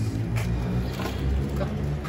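An engine running steadily in the background, with a couple of light clicks about half a second and a second in.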